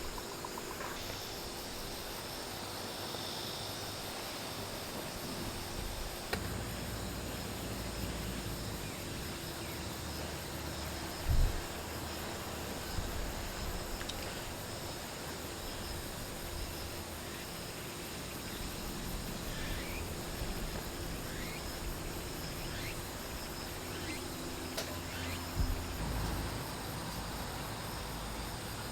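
Steady outdoor chorus of insects buzzing and chirping in summer heat, with a low thump about eleven seconds in and a few smaller knocks near the end.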